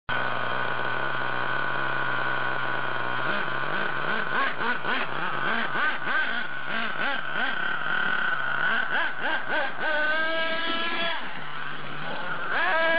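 Radio-controlled MGT truck's motor holding a steady idle, then revved up and down in quick throttle blips from about three seconds in. About ten seconds in it is held at a high pitch for a second, drops to a lower steady note, then climbs again near the end.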